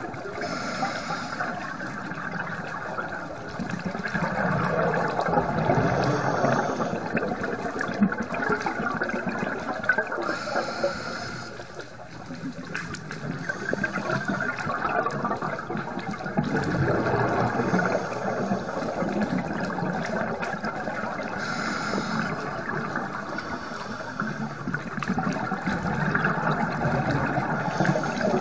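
Scuba divers' exhaust bubbles and regulator breathing heard underwater: bubbly gurgling that swells and eases in waves every few seconds.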